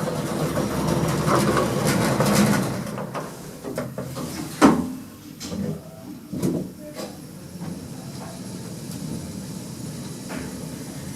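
KONE EcoDisc lift: the sliding car doors closing with a clunk about four and a half seconds in, then the car setting off and travelling with a low steady hum.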